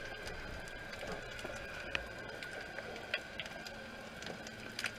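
Underwater ambience picked up by a submerged camera: scattered sharp clicks and crackles over a steady high hum and a low rumble, with a few louder clicks about two, three and nearly five seconds in.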